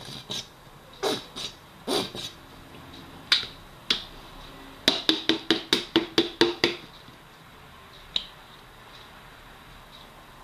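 Plastic squeeze bottle of ketchup being squeezed and shaken over a plate: scattered sharp spluttering squirts and knocks, then a quick run of about nine at roughly five a second around five to seven seconds in.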